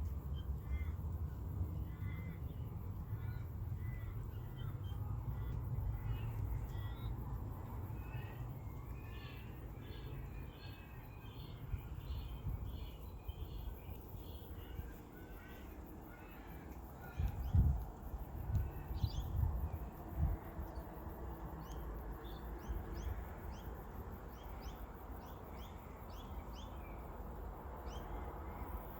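Birds calling over and over, a dense run of short calls in the first half thinning out later, over a steady low rumble. A few dull thumps come a little past the middle.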